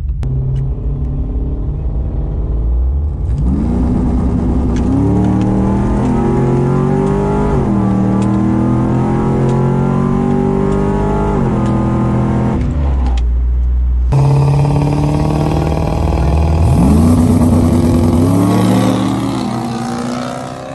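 Drag-racing truck engine inside the cab: low idle, then about three seconds in it revs up hard at the launch and pulls through several gear changes, each one a drop in pitch. After a sudden change in the sound, the same kind of launch is heard from beside the track: engines revving up through a shift, then fading away down the strip.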